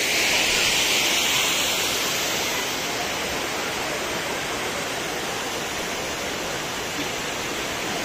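Steady rush of falling water from a hot-spring waterfall, a little louder in the first couple of seconds.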